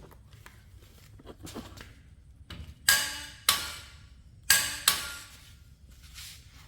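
A click-type torque wrench breaking over on caliper bolts set to 300 pounds: four sharp metallic clicks with a short ring, in two pairs about half a second apart, after some faint ratcheting ticks.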